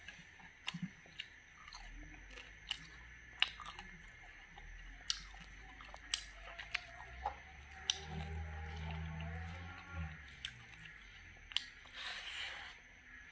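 Close-up chewing of wood larvae and rice: scattered crisp crunches and wet mouth clicks, with a low hum for about two seconds past the middle.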